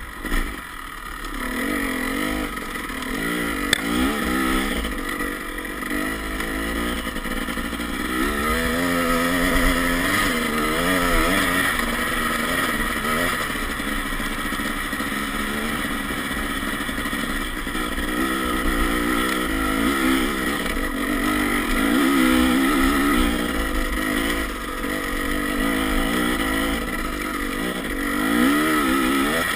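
Dirt bike engine running hard while being ridden, its revs rising and falling again and again with the throttle.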